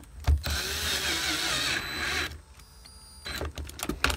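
Cordless power driver with a Torx 30 bit running for about two seconds, driving a console bolt down. A few short knocks and clicks follow near the end.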